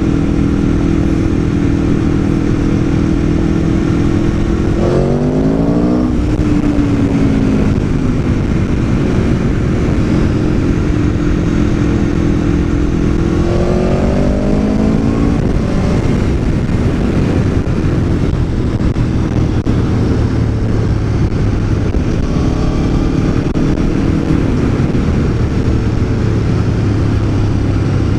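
Aprilia Tuono V4 1100's V4 engine pulling the bike along, its pitch sweeping sharply about five seconds in and climbing again around fourteen seconds as it revs, over a steady rushing noise.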